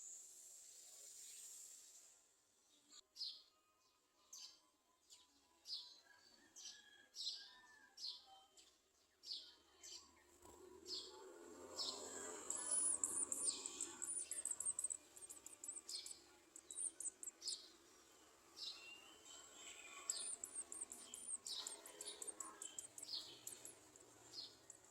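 Garden sunbirds calling at the nest: a steady run of short, high chirps about one to two a second, with louder bursts of quick, very high twittering about halfway through and again later.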